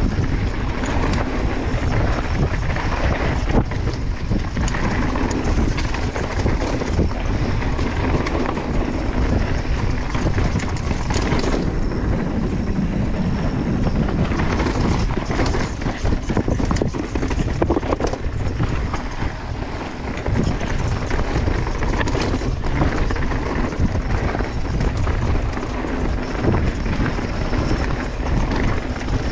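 Mountain bike riding fast down a rocky trail: tyres roll and clatter over rock, with many short knocks and rattles from the bike. Heavy wind buffets the microphone.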